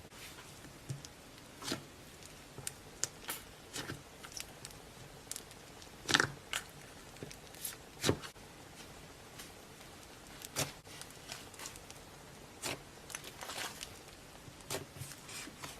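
Slime being squeezed and poked by hand, giving irregular sticky pops and clicks, the loudest about six and eight seconds in.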